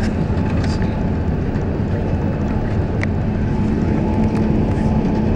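Steady cabin noise inside an Airbus A380 airliner moving on the ground: an even rumble and hiss from the engines and airframe, with a faint steady hum and a single light click about three seconds in.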